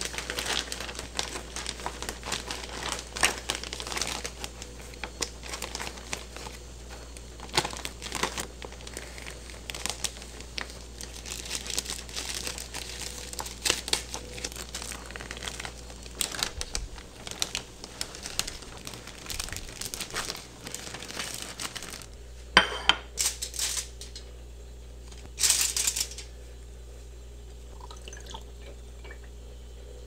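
Crinkling and rustling, as of packaging being handled, in dense irregular bursts for about twenty seconds. Then it stops, and two short, louder rustles follow a little later.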